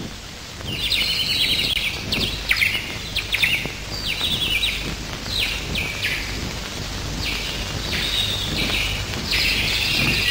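Small birds chirping and trilling in quick high-pitched bursts, starting about a second in, over a steady low hum.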